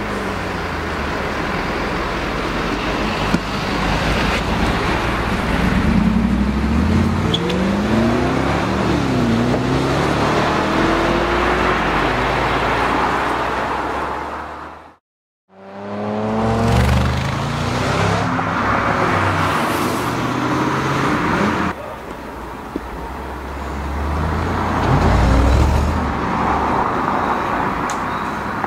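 Mercedes-Benz SLR McLaren's supercharged V8 accelerating hard, its pitch climbing in repeated runs as it goes up through the gears. The sound cuts out completely for about half a second midway, then another acceleration run follows.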